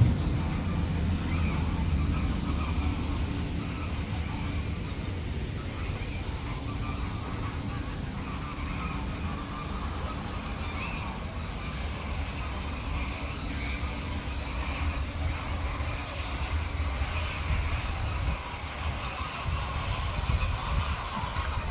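Birds calling with scattered short calls over a steady low rumble.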